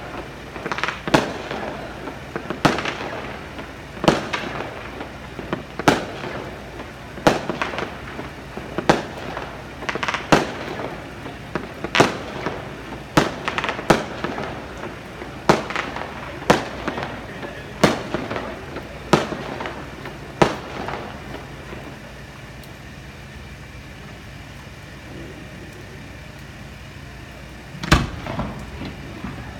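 Fireworks shells bursting one after another, a sharp bang about every second and a half, then a pause of several seconds before another bang near the end.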